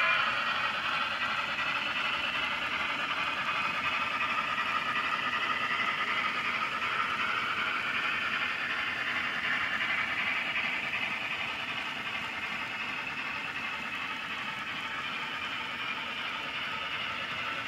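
N scale model train cars rolling along the track: a steady whirring rattle of small wheels on rails that gets a little quieter in the second half.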